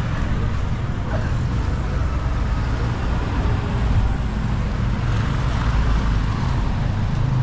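Street traffic noise: a steady low rumble of motor vehicles running close by.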